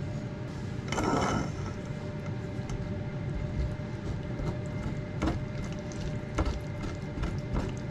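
Boiled pumpkin and onion sliding from a pan into a wire-mesh strainer about a second in. After that, a wooden spatula presses and scrapes them against the mesh with scattered small clicks and knocks.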